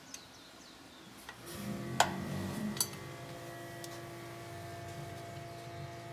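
Sharp metallic clinks of a hand wrench working on a truck engine's cylinder head with the injectors out. The loudest comes about two seconds in and a second follows just under a second later, over a steady hum.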